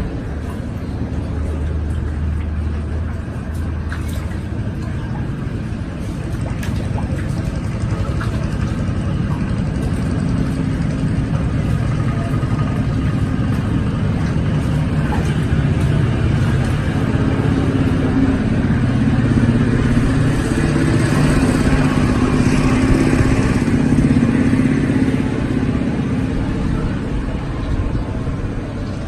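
A motor running steadily, rising somewhat in level through the middle of the stretch and easing off near the end.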